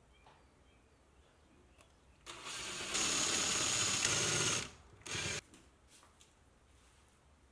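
Makita 18V LXT cordless drill boring through plywood with a twist bit: it starts a little after two seconds in and steps up to a steady higher speed for about a second and a half. A short half-second run follows just after it stops.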